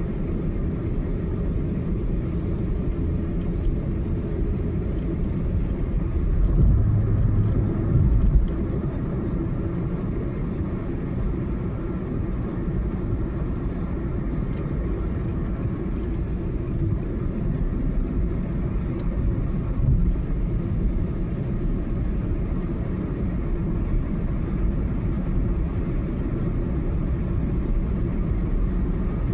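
Car driving along a highway: a steady low rumble of road and engine noise, swelling louder for a couple of seconds about seven seconds in.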